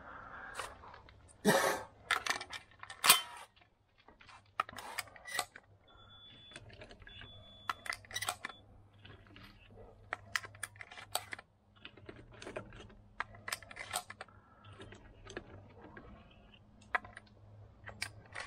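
Irregular metallic clicks and clinks of a shotgun and its shells being handled, with two louder clacks about one and a half and three seconds in.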